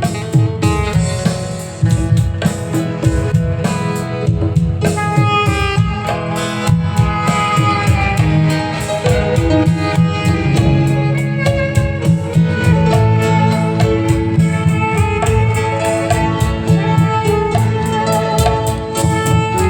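Loud music with a steady drum beat and melodic instrument lines over it.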